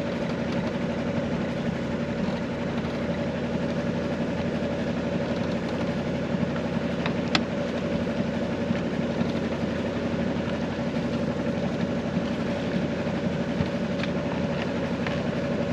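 Alberg 30 sailboat's inboard engine running steadily, with one brief click about seven seconds in.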